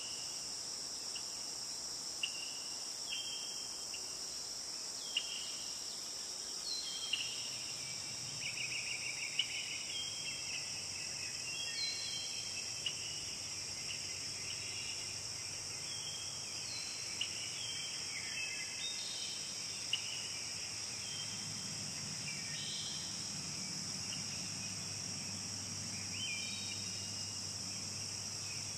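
A steady, high-pitched chorus of insects, with birds calling in short chirps and whistles throughout. A faint low rumble comes in after several seconds and grows stronger past the middle.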